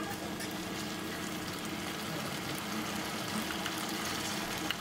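Steady watery rushing noise.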